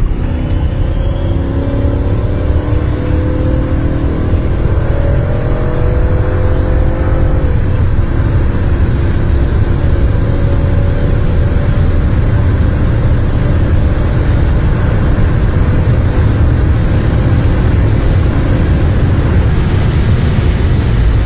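BMW E39 540i's V8 under full-throttle acceleration, heard from inside the cabin: the engine note climbs steadily, breaks at a gear change about seven and a half seconds in, then climbs again while a heavy rush of wind and road noise at high speed takes over.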